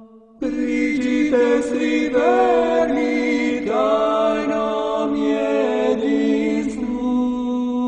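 Orthodox church chant sung a cappella: voices carry a melody over a steady low held note. The singing resumes after a short pause about half a second in.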